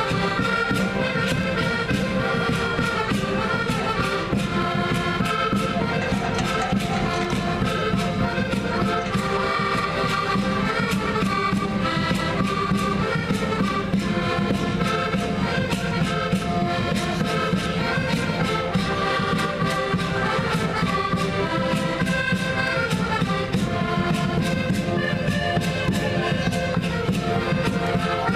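An ensemble of accordions and button accordions (concertinas) playing a traditional tune together, with held chords over a steady beat.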